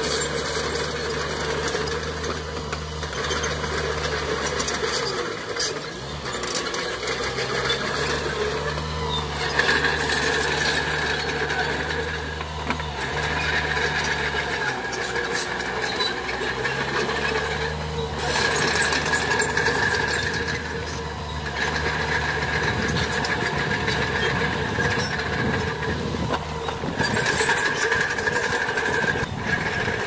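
Small crawler bulldozer's diesel engine running, its note rising and falling as it pushes dirt. A high squeal from the machine comes and goes in stretches of a few seconds.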